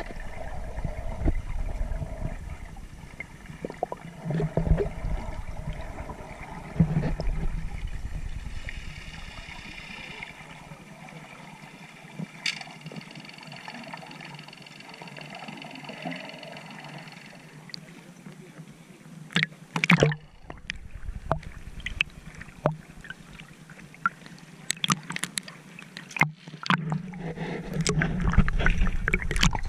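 Muffled water sloshing and gurgling around an action camera held underwater, with sharp splashy clicks and a louder rush in the last part as it comes up to the surface.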